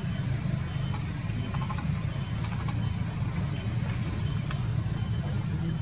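Steady high-pitched insect drone, one unbroken tone, over a low steady rumble, with a few faint ticks.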